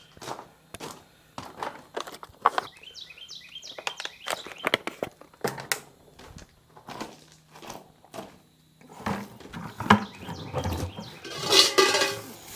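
Dry, papery garlic bulbs and their skins crackling and rustling as they are handled and sorted by hand, in irregular clicks, with a louder burst of crinkling near the end.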